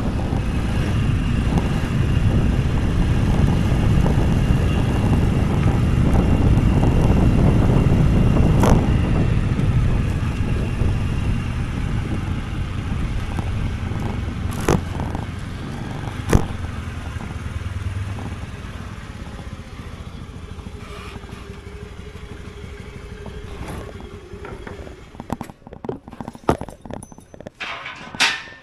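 A motor scooter being ridden: its small engine running under a heavy rumble of wind and road noise, loud for the first half and dying down as it slows. A few sharp clicks cut through, and several knocks come near the end as it stops.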